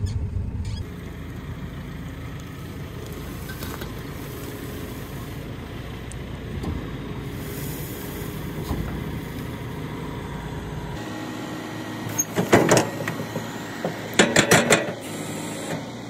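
A motor vehicle driving, a steady engine and road rumble. Near the end come two loud, short bursts of sharp clattering a couple of seconds apart.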